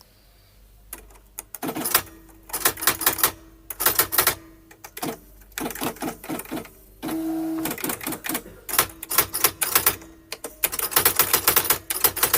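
Nakajima AX-150 electronic typewriter typing: bursts of rapid, sharp print strikes with short pauses between them. About seven seconds in comes a brief steady motor whir lasting under a second.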